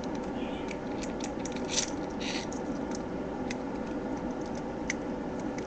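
Small scattered clicks and scrapes of a small screwdriver working on a plastic solar walker toy, with a steady low hiss underneath.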